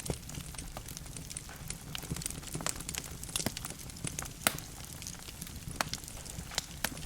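Logs burning in a fireplace, crackling with irregular sharp pops over a low steady rumble of the flames; one pop about four and a half seconds in is the loudest.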